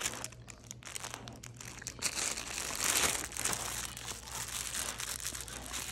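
A Goldendoodle chewing and pawing a plush VHS-tape chew toy, its crinkle lining crackling and rustling on and off, loudest about two to three seconds in.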